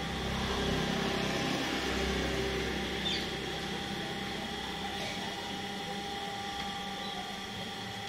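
A steady low electrical hum with a faint steady whine above it; about three seconds in there is a small click, and the hum then fades.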